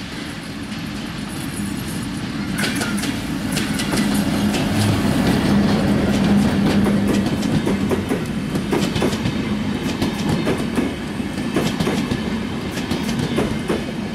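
Diesel locomotive hauling an intercity passenger train approaches and passes close by, its engine hum building to its loudest about halfway. Then the passenger coaches roll by with a rapid clickety-clack of wheels over the rail joints.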